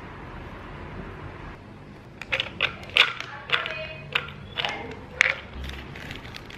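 Almonds clattering as they are tipped from a glass jar into a small ceramic bowl: a string of sharp clicks and knocks lasting about three seconds, starting about two seconds in, over a steady low hiss.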